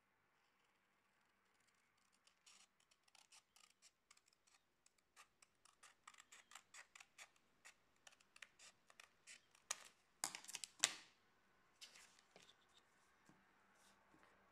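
Small scissors snipping through a sheet of paper: a run of short, quick cuts, about two or three a second, with a brief louder rustle of paper about two-thirds of the way through and a few last snips after it.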